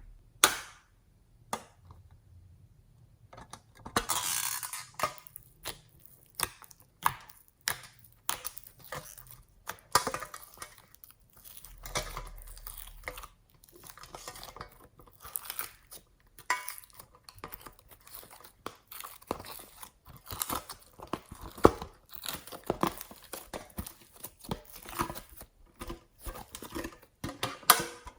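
Slime being mixed and worked, making a dense, irregular run of sticky clicks, pops and crackles, with a longer crinkly rush about four seconds in.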